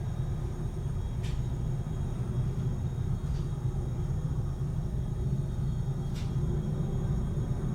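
Steady low rumble of jet aircraft engines, with three faint brief clicks.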